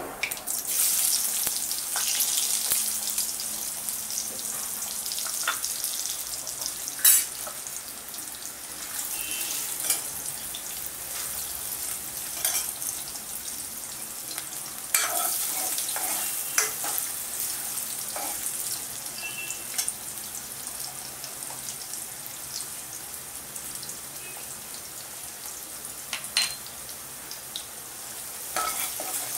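Cut potatoes sizzling as they fry in hot oil with cumin and mustard seeds in a steel kadhai, the sizzle loudest in the first few seconds after they go in. A steel ladle stirring them clinks against the pan now and then.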